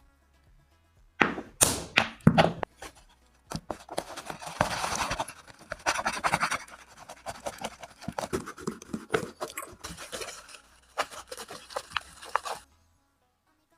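Homemade no-glue clay slime being mixed and squished: a few knocks, then several seconds of dense, irregular sticky crackling and clicking that stops abruptly near the end.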